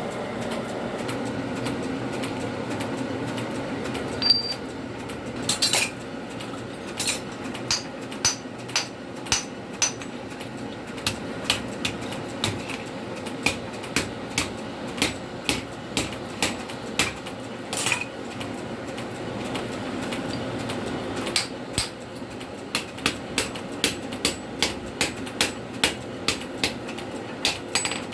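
Hand hammer striking steel on an anvil in a series of sharp, light blows, roughly one to two a second, starting a few seconds in and pausing briefly about two-thirds of the way through. A steady low hum runs underneath.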